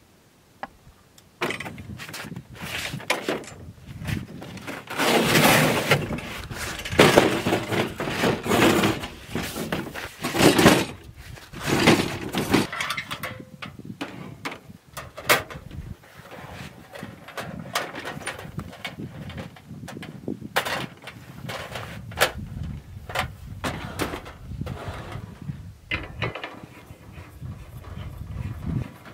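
Knocks, clicks and rough rustling noises from handling a portable propane griddle on a folding table, loudest in the first half.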